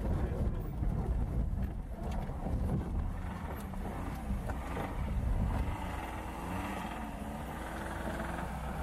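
Lada Niva driving over a rough dirt track, heard from inside the cabin: a steady low engine drone with knocks and rattles from the body and suspension over the bumps.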